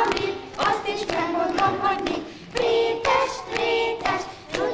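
A group of young children singing a children's song together in unison, clapping their hands along with the beat.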